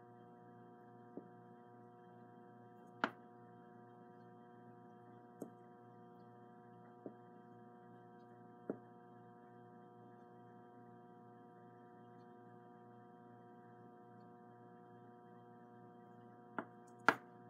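Faint steady electrical hum made of several steady tones, with a few light clicks and taps from handling a slot-car pancake armature on an aluminium static balancer; the sharpest click comes about three seconds in and a pair falls near the end.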